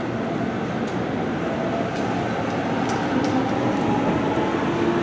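Seibu 30000 series electric train pulling into the station, its wheels and motors making a steady rumble that grows slightly louder, with a faint motor whine from about two seconds in.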